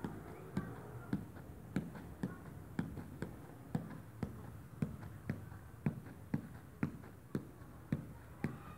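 A small ball being juggled on the feet: a steady run of taps of shoe against ball, about two a second.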